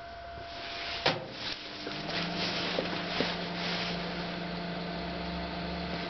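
900 W microwave oven door shut with a sharp click about a second in, then the oven starts on full power and runs with a steady hum.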